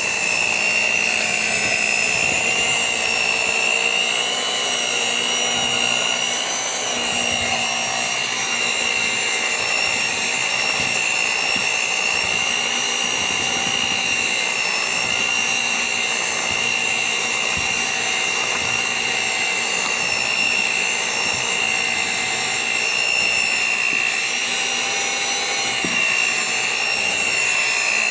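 Electric kitchen mixer running steadily, a high motor whine that wavers slightly in pitch.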